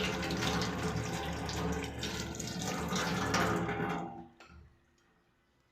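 Water running steadily, like a tap into a sink, stopping abruptly about four seconds in; the rest is near silence.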